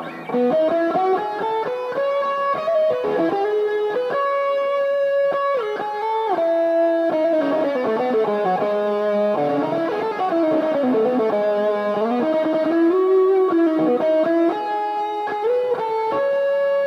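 Greco WS-STD Stratocaster-style electric guitar played through an amp: melodic single-note lines and double-stops, with notes sliding and bending between pitches.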